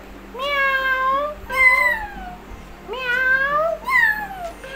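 Talking Tom cat toy's speaker playing about four high-pitched electronic meows, each sliding in pitch, one held longer and others falling away.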